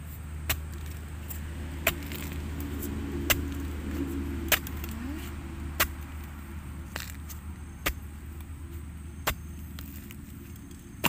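A metal digging tool chopping into soil and roots around a bamboo shoot: about eight sharp strikes, roughly one every second and a half, over a low steady rumble.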